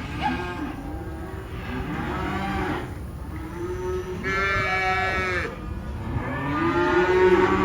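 Several calves bawling in the stockyard pens, long overlapping moos one after another, the loudest near the end.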